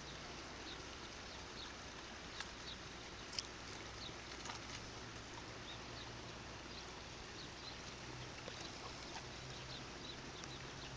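Faint outdoor lakeside ambience with scattered short, high bird chirps and a steady low background hum, broken by two light clicks about two and a half and three and a half seconds in.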